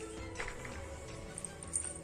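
Faint background music with a couple of soft taps.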